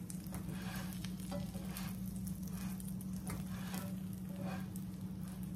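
Buttered grilled cheese sandwich sizzling in a nonstick frying pan, with a slotted spatula scraping and pressing against it in short repeated strokes. A steady low hum runs underneath.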